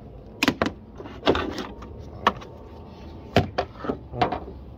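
Plastic air-intake ducting and air-box parts being unclipped and pulled out of a car engine bay by hand: a series of sharp plastic clicks and knocks, about eight in all, irregularly spaced.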